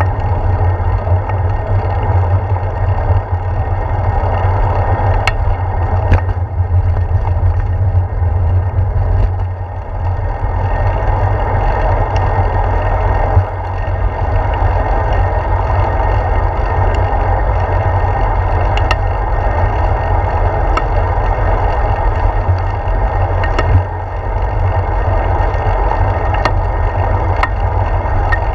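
Wind rumbling over the microphone of a handlebar-mounted camera on a moving bicycle, mixed with tyre-on-road noise. A few light clicks or rattles from the bike come through now and then.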